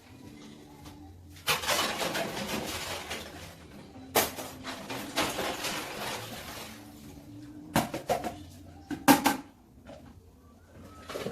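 Washing dishes at a kitchen sink: water runs from the tap in two spells, then plates and pots clatter a few times near the end.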